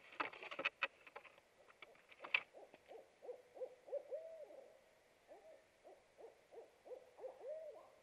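Barred owls hooting in a duet: after about two and a half seconds, a fast, uneven run of rising-and-falling hoots and drawn-out upslurred notes. Before that, sharp scrapes and knocks as the owl clambers out of the wooden nest box.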